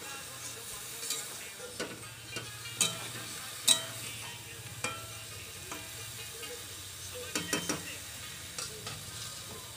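Eggplant and tomato pieces sizzling as they fry in oil in a metal karahi, with a spatula stirring them and scraping and clicking against the pan several times, loudest a little past the middle.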